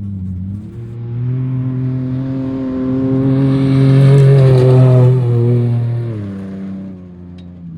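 Off-road race vehicle's engine running hard as it approaches and passes by. It grows louder to a peak about four to five seconds in, then the engine note drops in pitch and fades as it moves away.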